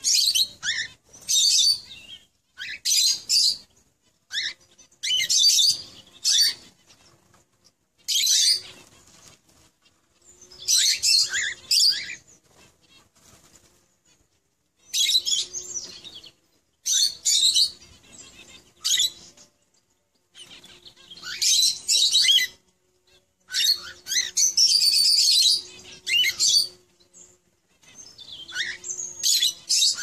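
A pair of lovebirds mating: repeated bursts of high, scratchy chattering mixed with the flutter of wings, each lasting a second or two, with short pauses between them.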